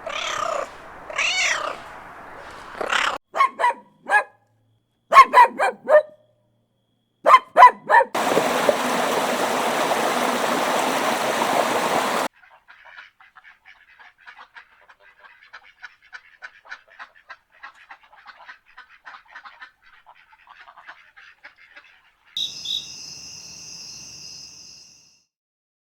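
A domestic cat meowing in the first couple of seconds. It is followed by a string of short, separate sounds: a few brief calls, a loud hiss of noise lasting about four seconds, then faint rapid ticking.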